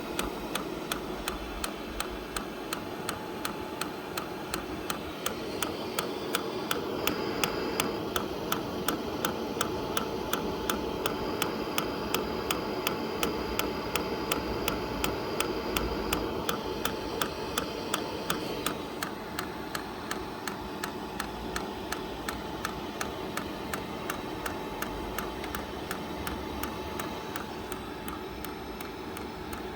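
HCalory TC2S diesel heater's fuel dosing pump ticking in a steady, even rhythm as it primes, with fuel just starting to come through the pump. Underneath is the steady hum of the heater running.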